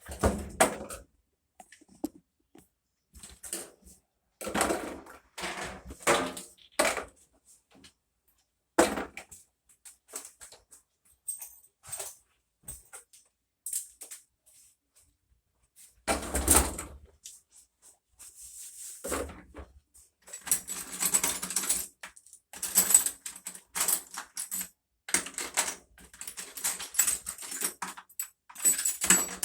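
Irregular clicks, knocks and rattling clatter of hard objects being handled, sparse at first and much denser from about two-thirds of the way in.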